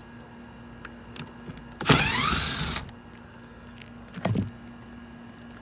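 A small electric motor of a power tool whirs once for just under a second, its pitch rising and then falling, with a shorter, weaker whir about two seconds later. A steady low hum runs underneath.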